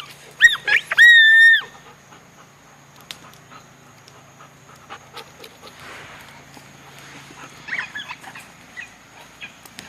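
A dog's high-pitched yelps: two short ones, then a longer, steadier one, in the first two seconds, with a few fainter yelps near the end.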